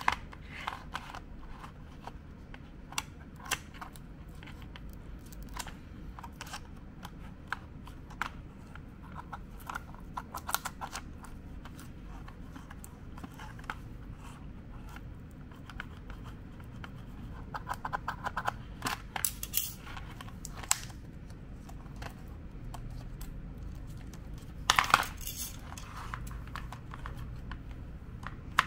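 Steel scissors cutting through the cardboard-and-plastic blister packaging of a toy card, with irregular sharp snips and clicks of the blades. There is a denser run of snips about two-thirds of the way through and a louder crackling burst near the end.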